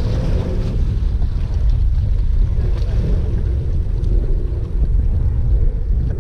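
Steady wind rumble buffeting the microphone, over the wash of sea waves against the rocks.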